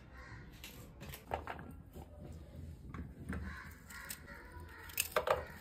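Small kitchen knife cutting vegetables held in the hand over a steel plate: a few faint, scattered crisp cuts and clicks, with a cluster of them near the end, over a low steady hum.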